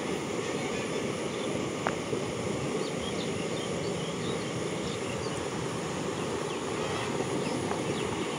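Steady rushing noise of moving river water and wind on the microphone, with a few faint high chirps in the second half.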